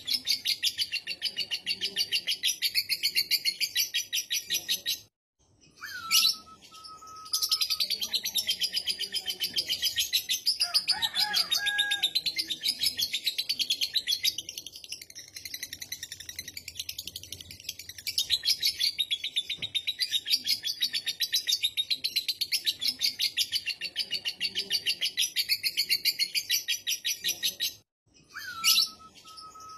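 Lovebird ngekek: a long, very fast chattering trill of repeated high notes. It breaks off twice into a brief silence, each followed by a short gliding whistle before the chatter resumes.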